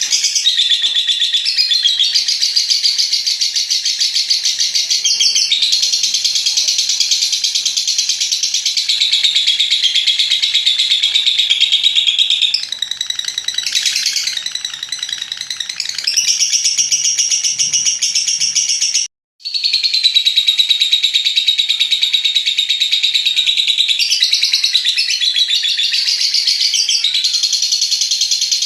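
Lovebird giving its long ngekek song: a continuous, rapid, high-pitched chattering trill that runs on without pause, broken once by a brief cut to silence about two-thirds of the way through.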